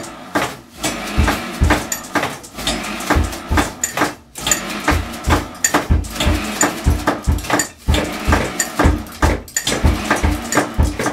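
Improvised rhythmic percussion played on kitchen pots, pans and dishes: a steady beat of clattering metal hits over deep thuds, about two a second.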